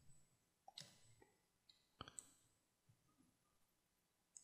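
Near silence with a few faint clicks from computer use: one about a second in, then two in quick succession about two seconds in.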